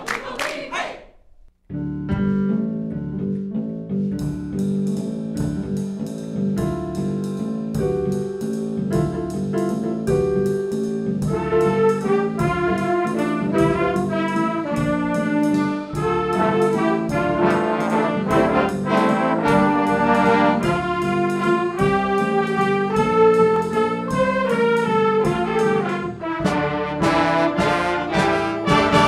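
A brass ensemble playing, starting about two seconds in and running on as a continuous piece of pitched notes until it cuts off abruptly.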